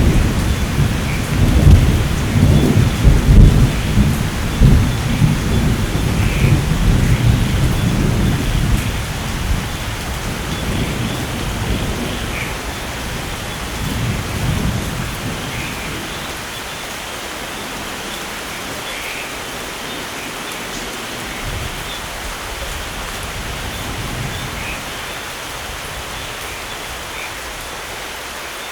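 Rolling thunder rumbling loudly at first and dying away over about fifteen seconds, over steady rain.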